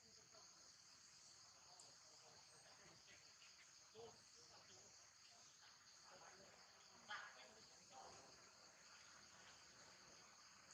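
Faint, steady, high-pitched insect chorus, with a few brief soft sounds about four and seven seconds in.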